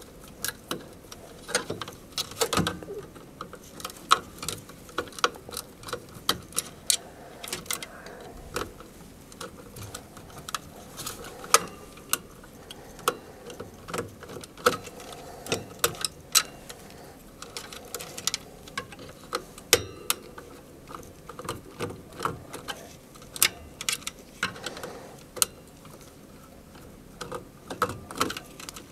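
Irregular small clicks and ticks of a number one Phillips screwdriver working the screw terminals on a variable frequency drive's terminal block as its top row of wires is loosened and freed.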